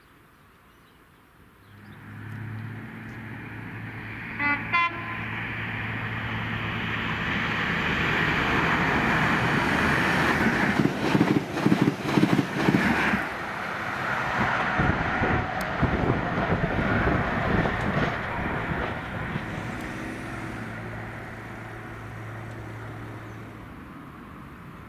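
A ScotRail HST (diesel power cars hauling Mark 3 coaches) sounds a short horn note and passes along the platform. A steady diesel engine drone builds, then the wheels clatter rapidly over the rail joints. The drone returns near the end as the rear power car goes by.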